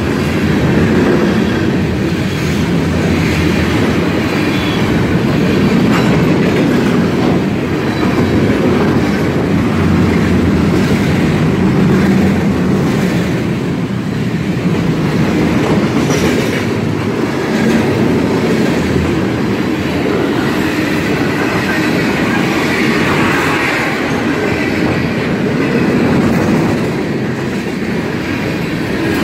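Freight train of tank cars and covered hoppers rolling past close by at speed: a loud, steady rumble of the cars with wheels clacking over rail joints.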